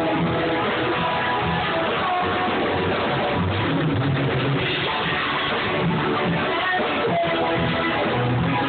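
Rock band music: guitar and drum kit playing steadily, recorded with poor, muffled sound quality.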